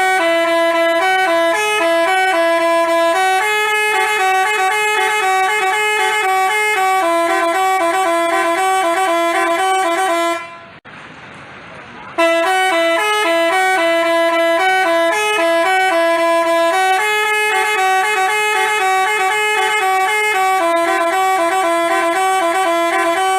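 Telolet musical bus horn, a Basuri-type multi-trumpet horn, playing a tune of stepped held notes. The phrase runs about ten seconds, breaks off briefly near the middle, then starts over with the same tune.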